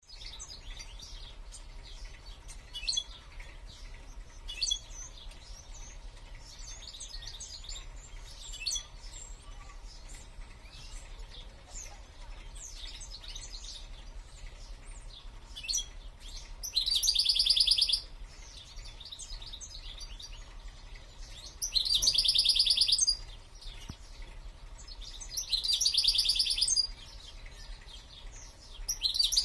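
A caged songbird singing: quick, scattered high twitters, then four loud, rapid trills of about a second each in the second half.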